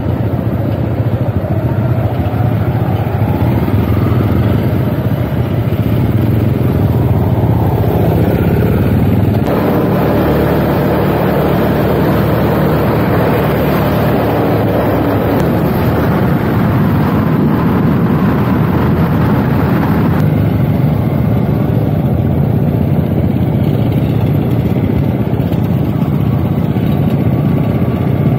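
Motorcycle on the move: engine running under steady wind noise. The sound changes character about ten seconds in and again about twenty seconds in.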